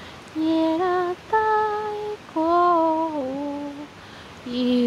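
A woman humming a slow, wordless tune of held notes, each about half a second to a second long, with short breaks between them; the pitch steps up early on and sinks lower in the second half.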